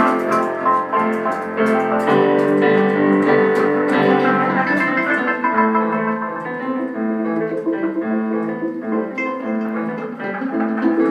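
Improvised instrumental music played live, with keyboard chords and held notes carrying it.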